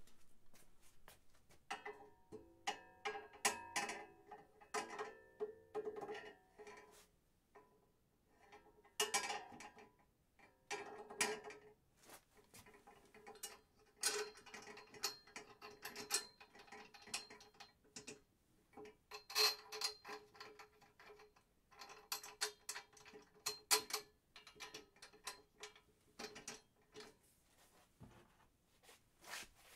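Hands working at the pressure washer's pump fittings: bursts of rapid metallic clicks and clinks, with a light ringing after them.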